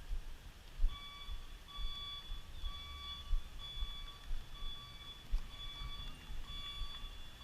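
Electronic beeper sounding a repeating high beep a little more than once a second, starting about a second in. Low rumbling thumps run underneath.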